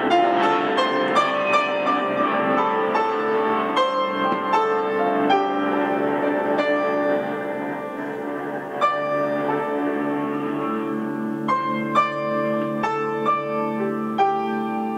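Live instrumental duet: an upright piano played in a continuous run of struck, ringing notes, with an archtop electric guitar beneath it.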